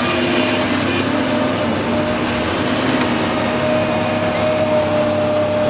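Heavy machinery engine, likely an excavator's diesel, running steadily, with a steady whine joining in about a second and a half in.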